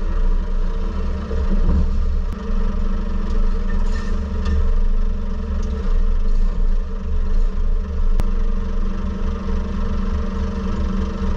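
HGV diesel engine running steadily at low revs while the extendable flatbed trailer is slid closed, with a few faint clicks and knocks.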